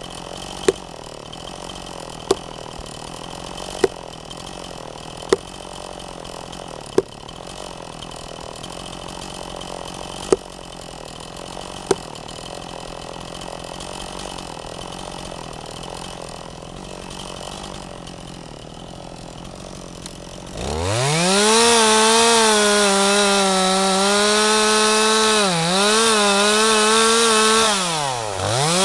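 A steady engine hum with a sharp knock about every one and a half seconds. About two-thirds of the way in, a chainsaw revs to full throttle and cuts, its engine note dipping twice as the chain bites into the wood.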